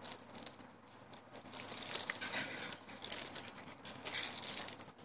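A plastic bag and glossy printed notebook covers crinkling and rustling as they are handled, in irregular bursts that pick up after about the first second.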